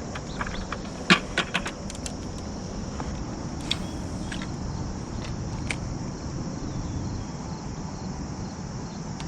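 Steady low rumble of road traffic with a constant high insect drone, and a scatter of sharp clicks and light rattles, several about a second in and a few more midway, from fishing tackle being handled.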